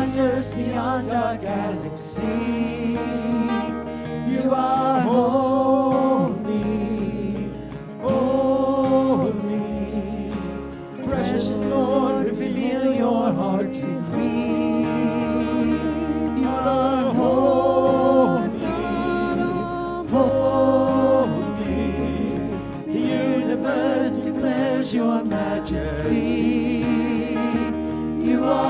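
Contemporary worship music: a band plays while singers carry a melody with long held notes, over bass and drums.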